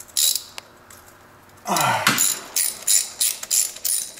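Hand socket ratchet clicking as a bolt is turned, in short back-and-forth strokes about three a second. Near the middle there is a brief throaty grunt with falling pitch.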